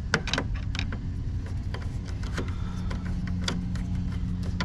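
Small sharp clicks and taps of a screwdriver and wire against the terminals of circuit breakers in an electrical panel, over a steady low drone.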